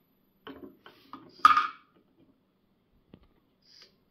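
LEGO robot arm working, with a few plastic clicks and then a short clatter about a second and a half in as a LEGO brick drops into a clear plastic cup. A lone click follows near the end.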